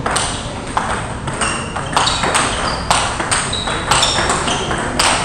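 Table tennis balls clicking off bats and tables in rallies at several tables, a rapid irregular run of sharp clicks, some followed by a short high ring.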